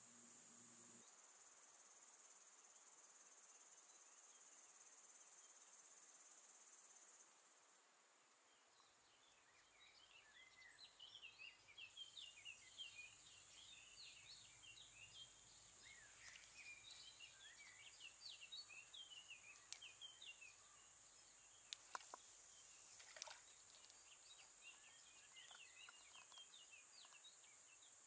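Faint outdoor ambience: a steady high-pitched insect drone, joined from about ten seconds in by quick, scattered chirps of small birds. Two faint clicks a little past twenty seconds.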